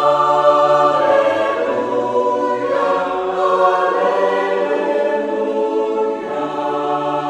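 Choral music: a choir singing held chords, starting abruptly after a brief silence and shifting chord a few times.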